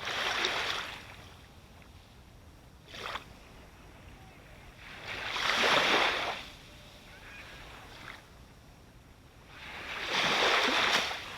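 Ocean waves breaking close by on the shore: three rushing surges about five seconds apart, each swelling and then fading, with a small short splash between the first two.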